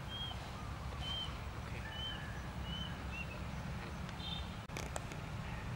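Small bird chirping: short high chirps repeating about once a second, with a lower note and a brief call near the end, over a steady low rumble. A couple of sharp clicks come near the end.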